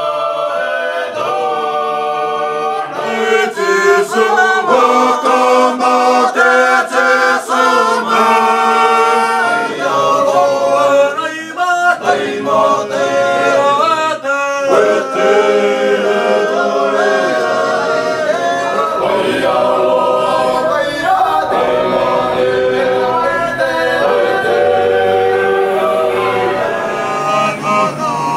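A group of young men singing together unaccompanied, as a choir, with several voices in harmony.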